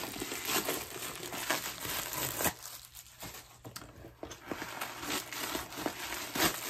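Crinkling and rustling of packing stuffing being pulled out of a new handbag, in irregular crackles, quieter for a second or so in the middle.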